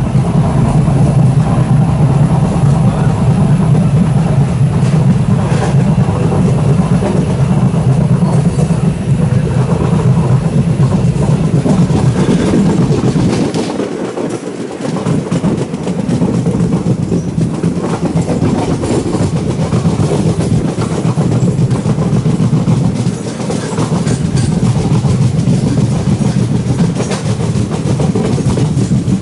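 Passenger train running, heard from inside a sleeper coach: a steady rumble of wheels on rail with faint clicks, briefly quieter about fourteen seconds in.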